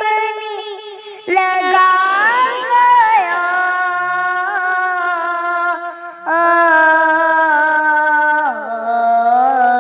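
A young girl's voice singing an Urdu devotional kalam in long, drawn-out notes with gliding ornaments. There is a short break about six seconds in, then another long held phrase that drops in pitch near the end.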